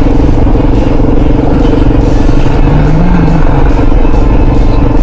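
Kawasaki KLR650's single-cylinder four-stroke engine running at steady revs under a heavy low rumble as the motorcycle rides over a rough, bumpy dirt road.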